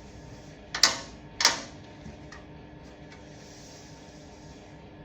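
Two sharp clacks about half a second apart, each ringing out briefly, then a faint click.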